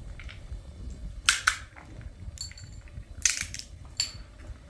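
Four sharp clacks spaced about a second apart, two of them with a brief high ring.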